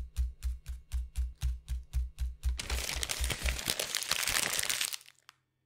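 A short intro jingle: a steady beat of bass thumps and clicks, about four a second. About two and a half seconds in it gives way to loud crinkling of a crumpled paper sheet being opened out flat, which stops about five seconds in.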